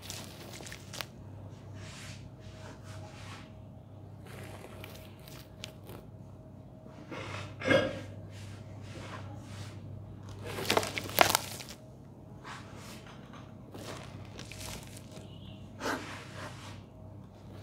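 Dry, dusty sand-cement powder being crumbled and rubbed by hand in a steel basin: a run of short gritty rubs and scrapes, with louder ones about eight and eleven seconds in.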